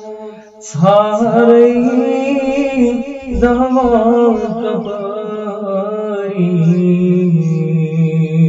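Male voice singing a naat unaccompanied in long, wavering held notes, without clear words, starting about a second in. A steady low hummed drone holds beneath it, growing stronger near the end.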